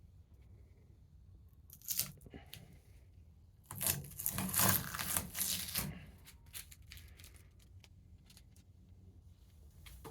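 Tape being peeled off a freshly painted aluminum toolbox. There is a short rip about two seconds in, then a louder tearing stretch lasting about two seconds, followed by a few small crackles.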